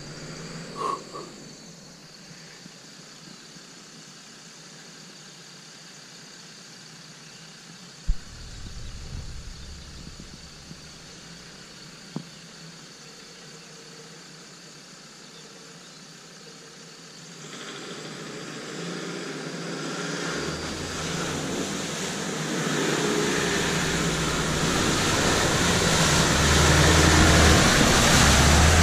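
Land Rover Defender Td5's five-cylinder turbodiesel engine approaching through deep mud, growing steadily louder over the second half until it is close by, with mud and water splashing as it nears. A single sharp knock sounds about eight seconds in.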